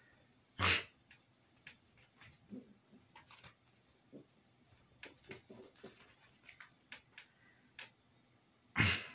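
Small fluffy puppy breathing hard as it plays with a plush toy: two loud, brief breathy bursts, one about a second in and one near the end, with faint scattered clicks and breaths between.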